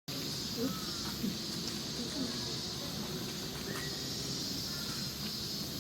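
A chorus of cicadas buzzing in a steady, continuous high drone, cutting in suddenly at the start, over faint distant voices.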